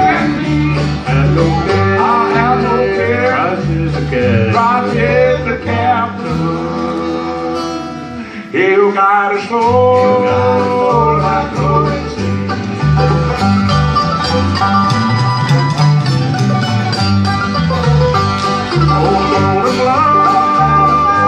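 Live acoustic bluegrass band playing: acoustic guitars, mandolin and banjo over an upright bass keeping a steady beat. The bass drops out briefly about eight seconds in, then comes back.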